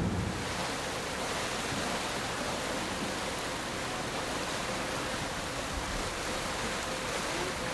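A steady, even rush of water with no breaks.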